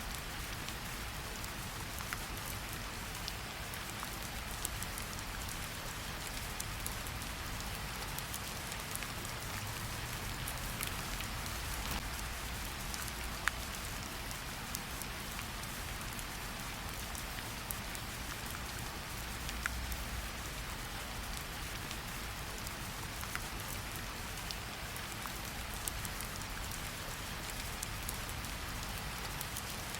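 Steady rain falling, an even hiss with scattered sharper drop ticks over a soft low rumble.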